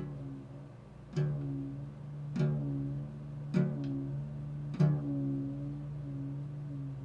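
Improvised meditative music: a plucked string instrument sounding four notes, one about every second and a quarter, each ringing out over a steady low drone.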